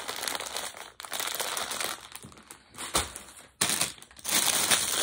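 Packaging crinkling and rustling as items are handled and unwrapped. It comes in stretches with brief breaks about a second in and about three and a half seconds in, with a sharp click near three seconds.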